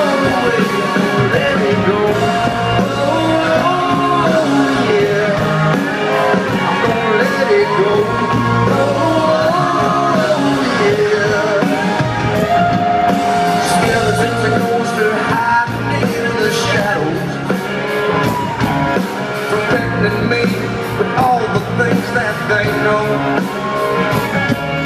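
Live band music with a male lead vocal, amplified through a concert sound system and heard from among the audience.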